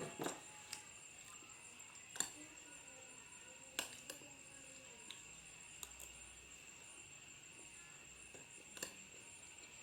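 Metal spoon clinking and scraping against a plate while eating fried rice, in scattered single clicks a second or more apart, the loudest near the start. A faint steady high-pitched tone runs underneath.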